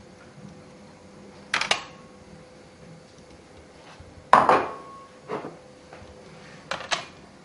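Kitchen bowls and dishes clattering as they are knocked and set down on the counter: a few separate clanks, the loudest about four seconds in, ringing briefly.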